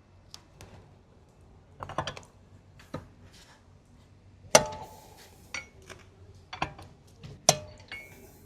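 Lug wrench on the wheel bolts, loosening them about half a turn with the wheel still on the ground. Heard as a series of sharp metallic clinks and knocks, some ringing briefly, the loudest about halfway through.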